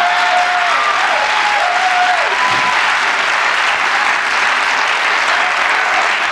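Sitcom studio audience applauding loudly and steadily, with a few short pitched calls or the tail of the music in the first two seconds or so.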